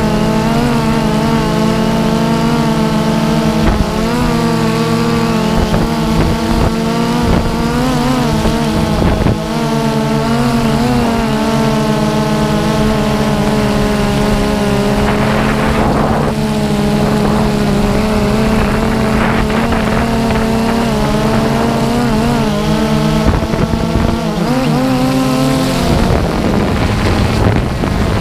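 DJI Phantom 2 quadcopter's motors and propellers humming steadily in flight, the pitch wavering as the motors change speed. Near the end the hum changes and a rushing noise comes up.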